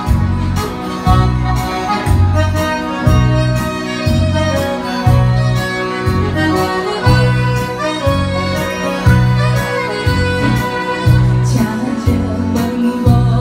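Live band music from electric keyboard and saxophone: a held, reedy saxophone melody over keyboard chords and a steady beat in the bass. A woman's singing voice comes in near the end.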